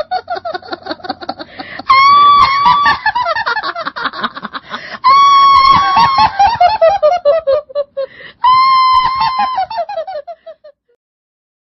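A high, laugh-like cackling call comes three times. Each time it starts high and falls away in quick pulses, like a shrill descending laugh.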